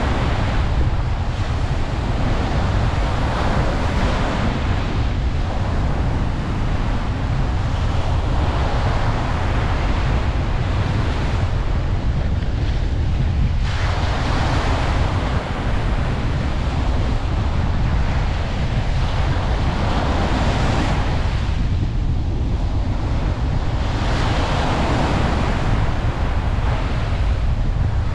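Ocean waves breaking on a beach, the surf swelling and falling back every few seconds over a steady low rumble.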